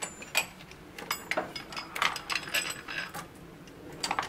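Irregular metallic clicks and clinks of hand tools and a makeshift puller bolt being handled and fitted at a Polaris Ranger 800's primary drive clutch.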